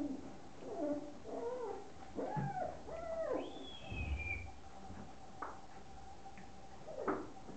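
Fox terrier puppies whining and yelping as they play-fight, a string of short calls with one higher squeal about halfway through.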